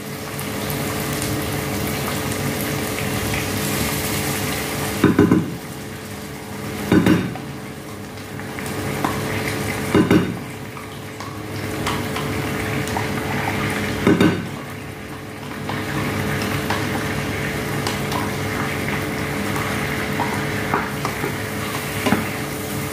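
Chicken frying in a pan, sizzling steadily, as yogurt is spooned in: a spoon knocks on the yogurt cup or pan rim four times, and the sizzle drops for a few seconds after some of the knocks. Near the end a spatula stirs the pan.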